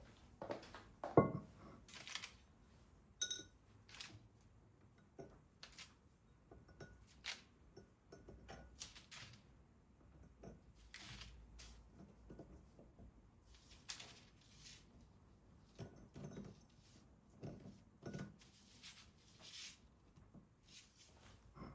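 Objects being handled: scattered light knocks and clicks, with one firmer knock about a second in and a short metallic clink a couple of seconds later.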